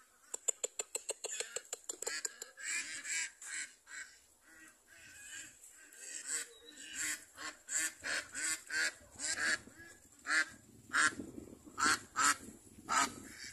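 Flock of Pekin ducks quacking, many short calls one after another and overlapping, opening with a fast run of clipped sounds in the first two seconds.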